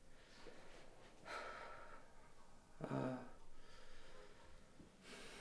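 Faint breathing in a pause: a breath about a second in, a short voiced sigh about three seconds in, and another breath near the end.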